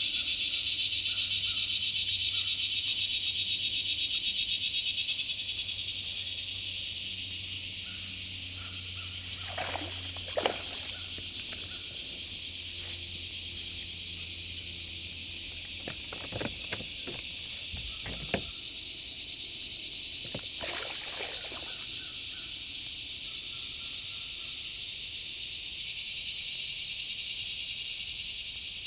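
Steady chorus of buzzing insects, louder for the first few seconds and then easing a little. A few brief knocks and sloshes stand out in the middle.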